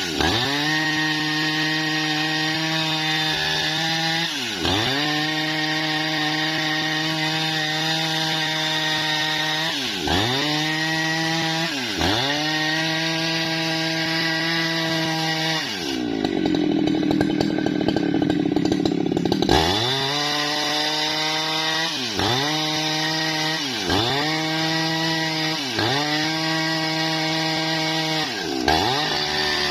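Jonsered chainsaw running at high revs while ripping a bendo-wood log lengthwise. Its pitch dips sharply and recovers every couple of seconds. In the middle, for about three seconds, the sound turns lower and rougher.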